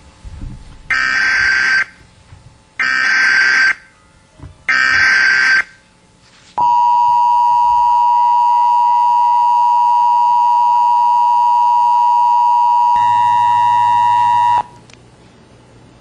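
Emergency Alert System tones: three one-second bursts of the harsh, buzzing digital header, then the steady two-tone EAS attention signal held for about eight seconds before it cuts off.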